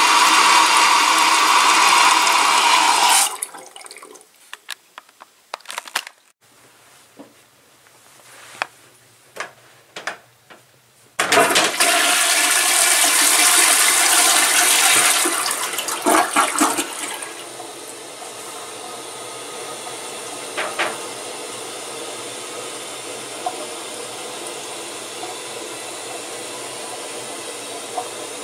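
Toilets flushing. Loud running water stops about three seconds in, followed by a quiet spell with scattered clicks and knocks. About eleven seconds in, a second toilet flushes with a sudden loud rush of swirling water lasting about six seconds, which then settles to steady, quieter running water as it refills.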